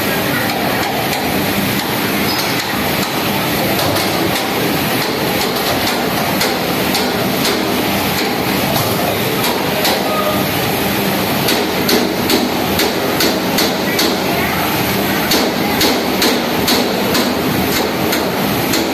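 Industrial washing machinery running in a garment-washing plant, a steady mechanical din. Irregular clattering knocks run over it and come thicker and louder in the second half.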